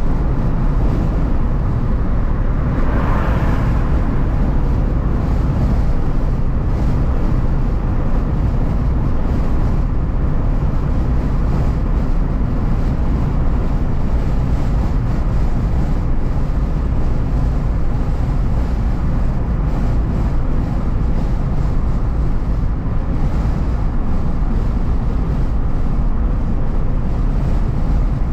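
Steady low rumble of road and engine noise inside a car's cabin at highway speed, with a brief rushing swell about three seconds in.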